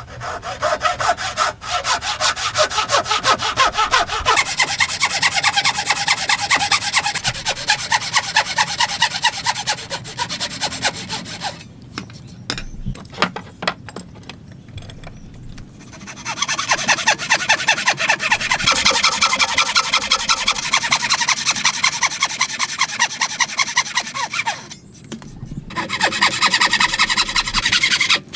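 Wooden-framed bow saw cutting by hand through a timber beam, in fast, even back-and-forth strokes. Around the middle the sawing stops for a few seconds, with a few sharp clicks, then starts again.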